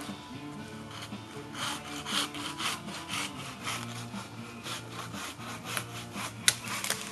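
A hand saw cutting through a tree trunk in quick, regular back-and-forth strokes, with a sharp crack a little before the end.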